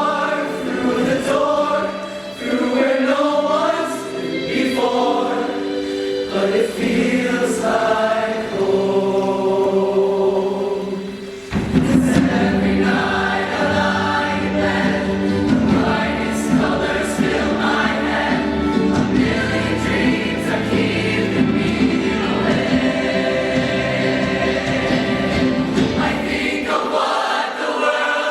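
High school show choir singing with its band. About twelve seconds in, the full ensemble with low bass notes comes in suddenly and the sound gets louder and fuller.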